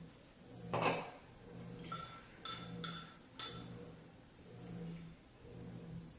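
Metal spoon striking a bowl three times in quick succession, each strike ringing briefly, with soft rhythmic chewing throughout. A louder noisy scrape or slurp comes about a second in.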